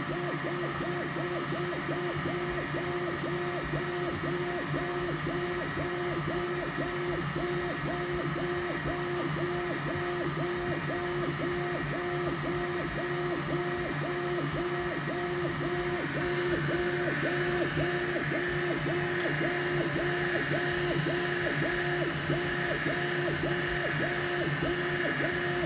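Elegoo Neptune 4 Pro 3D printer running: the motors give a rhythmic, repeating rising-and-falling whine as the head sweeps back and forth, over steady fan noise. The owner reports that the printer is squeaking.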